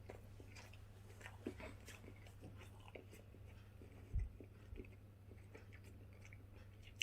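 Faint chewing of a mouthful of microwaved burger, soft scattered mouth clicks, with a single low thump about four seconds in.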